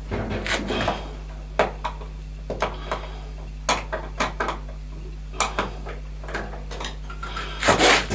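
Scattered light clicks and taps of a screwdriver and hands on the plastic control panel of a gas boiler, with a louder clatter near the end.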